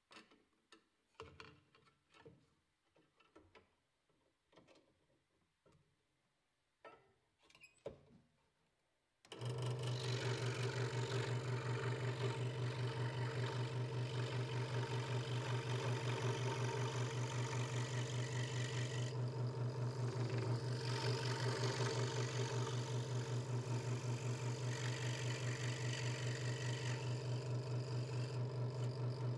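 A few soft knocks and clicks as the thin wooden board is handled on the saw table. About nine seconds in, a Hegner Multicut 2S scroll saw switches on suddenly and runs steadily, its blade moving fast up and down and cutting the lettering in the board, with a strong low hum.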